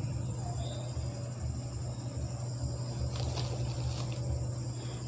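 Steady background: a low hum and a thin continuous high-pitched tone, with a few faint light taps about three seconds in.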